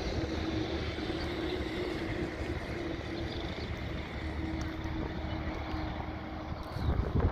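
Farm tractor engine running steadily, with wind buffeting the microphone and a louder low buffet near the end.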